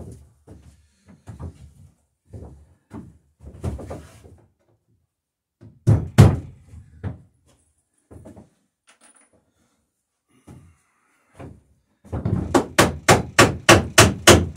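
Hammer driving a nail into a wooden dory's rail. Light scattered knocks of tools and wood come first, then two heavy blows about six seconds in, and near the end a quick run of strikes at about four a second.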